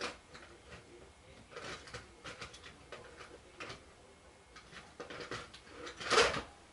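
Scattered light clicks and rustles of small objects being handled, with one louder rustling knock about six seconds in.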